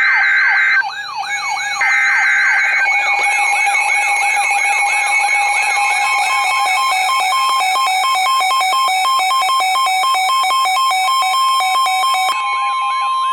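Weather radio emergency alert: two harsh screeching bursts of SAME alert-header data in the first three seconds, over a wailing siren alarm that sweeps up and down two or three times a second. From about six seconds in, a beeping tone near 1 kHz joins the siren, ending as a steady tone.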